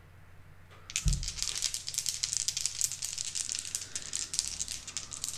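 Three game dice shaken together for a re-roll: a fast, irregular clicking rattle that starts about a second in, after a low thump, and runs for about four seconds.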